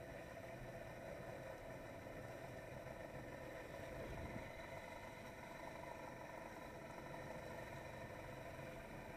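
Polaris SL 900 personal watercraft's two-stroke engine running steadily at low speed, with a brief low thump about four seconds in.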